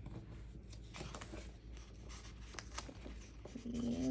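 Paper stickers being handled and pressed onto a planner page: scattered light clicks, taps and paper rustles.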